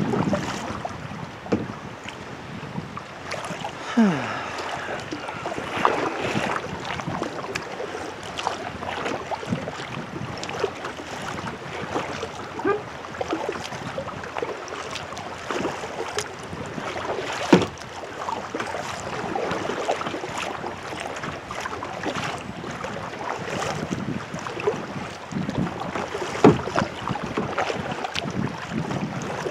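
Kayak paddling through choppy water: paddle strokes and water splashing and slapping against the kayak, with wind buffeting the microphone. A few sharper splashes stand out, the loudest about seventeen seconds in.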